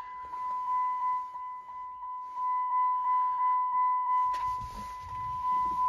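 Jeep Patriot's interior warning chime, a steady ding that repeats about three times a second. A low rumble and rustling come in about four seconds in.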